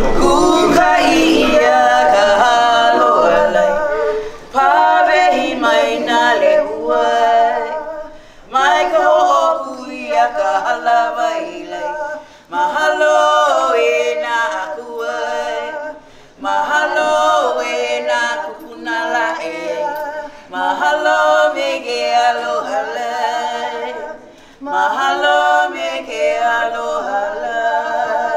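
A group of hula dancers singing a cappella, in phrases of about four seconds with a short break for breath between each.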